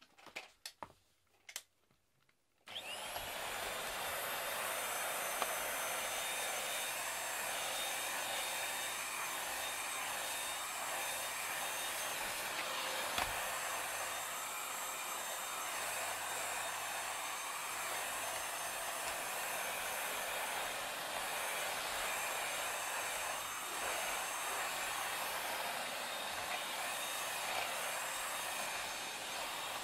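A few light clicks, then a corded stick vacuum cleaner switches on about three seconds in, its motor spinning up with a brief rising whine and then running steadily as it is pushed over foam floor mats and a shaggy rug.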